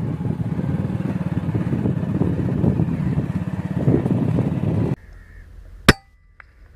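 A low engine rumble with a fast, even pulse runs until about five seconds in and then cuts off. A single sharp airgun shot follows, then a fainter click.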